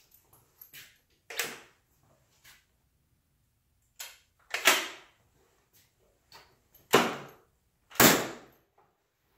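Ramset powder-actuated nail gun firing four times, a few seconds apart, driving nails through a wooden plate into a concrete block wall. Each shot is a sharp bang with a short echo, with smaller clicks and knocks from handling the tool in between.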